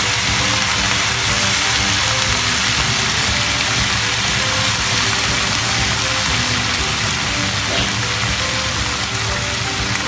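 Water lily stems frying in hot oil in a wok, a steady sizzle like rain, with background music under it.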